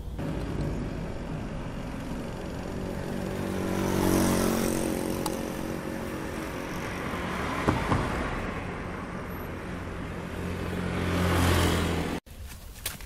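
Street traffic: motor vehicles passing close by, one swelling and fading about four seconds in and another building up near the end, when the sound cuts off abruptly.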